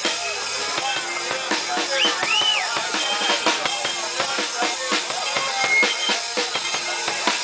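Live rock band playing, the drum kit keeping a steady beat under the other instruments.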